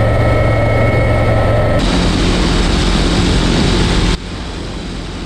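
AW159 Wildcat helicopter heard from inside the cockpit: a steady rotor drone with a constant high whine. About two seconds in it cuts abruptly to engine noise and wind rush from a small propeller-driven UAV. Near the end it cuts again to a quieter rush.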